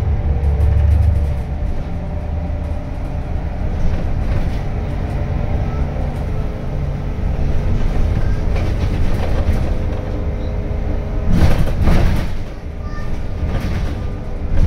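Inside an Irisbus Crealis city bus under way: a steady engine and drivetrain drone with road noise, heaviest in the low rumble for the first second and a half. Scattered clicks and rattles run through it, with a louder burst of knocking and clatter about three quarters of the way through.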